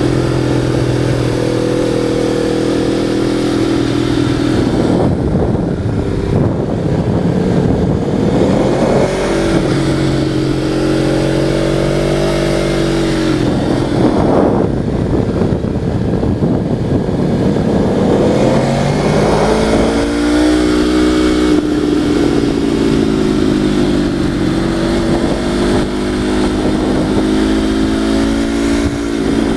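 Motorcycle engine running under way, its pitch holding steady, then climbing and dropping back several times as the rider speeds up and eases off.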